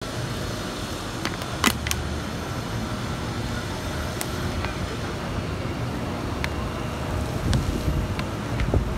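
Steady city traffic ambience: a low rumble with faint steady whines, and one sharp clack about one and a half seconds in, with a few fainter ticks later.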